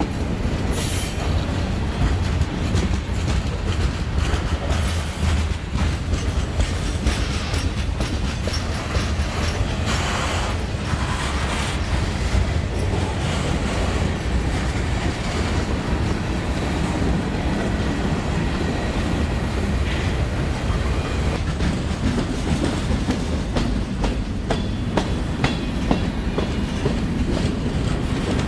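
Freight cars rolling past close by: a steady rumble of steel wheels on rail with the clickety-clack of wheels crossing rail joints.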